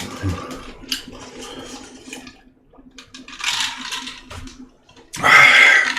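Close-miked eating sounds: wet chewing with clicks and lip smacks, and a louder wet stretch about five seconds in.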